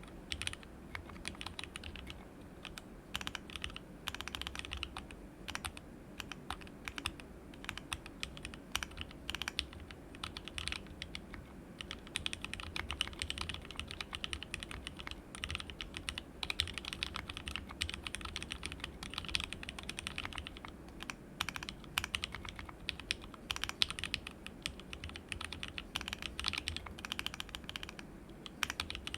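Continuous typing on a plateless mechanical keyboard with lubed, filmed 43 Studio Toy switches on a flex-cut WT60-D PCB, in a resin case with ABS Cherry-profile keycaps: a rapid, uneven stream of key clicks.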